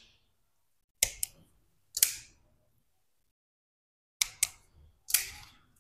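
Wire stripper snapping shut on electrical wires and pulling off the insulation: four sharp clicks, two of them doubled, each followed by a short scrape.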